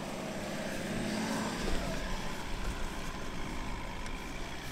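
Ineos Grenadier 4x4 crawling up a loose gravel mound, its engine running steadily under load.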